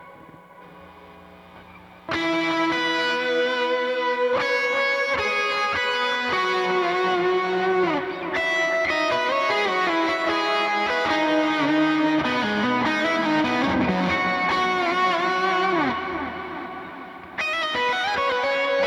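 Electric guitar played through a Quad Cortex amp modeller with a drenched, effects-heavy worship tone. A fading note tail gives way about two seconds in to a loud passage of sustained, overlapping notes with some sliding down in pitch. This fades out near the end, and a new phrase comes in.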